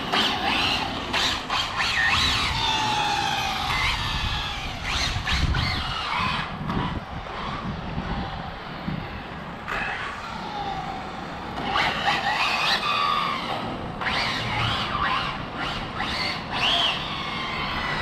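Twin-motor Arrma Felony RC car driving and drifting on asphalt. Its electric motors whine in repeated glides that rise and fall in pitch with the throttle, over tyre scrub on the road surface.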